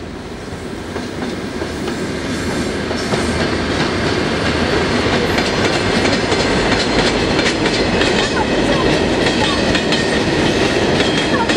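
Diesel freight train passing close by: the rumble grows louder over the first few seconds as the locomotive comes through the crossing. Then the boxcars roll past with a steady rumble and a rhythmic clickety-clack of wheels over the rails.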